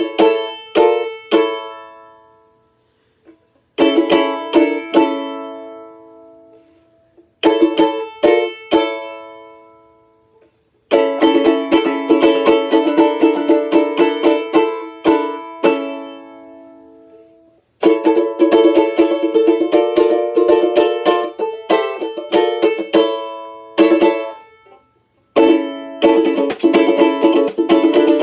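Outdoor tenor banjolele (banjo-ukulele) in gCea tuning, strummed. First a few chords are struck and left to ring and fade with short pauses between them. From about a third of the way in comes steady rhythmic strumming in three runs, the last one faster and denser.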